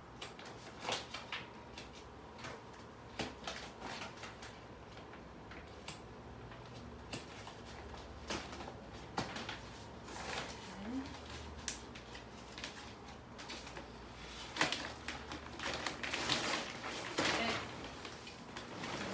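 Scissors snipping through the plastic wrap of a compressed memory foam mattress, with the plastic crinkling in sparse clicks and crackles. In the last few seconds this grows to a denser, steady rustle as the wrap is pulled back.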